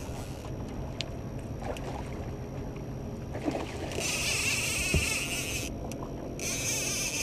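A hooked salmon splashing and thrashing at the surface beside the boat: two bursts of splashing, the first about four seconds in and the second near the end. Under it runs the low steady hum of the boat's motor.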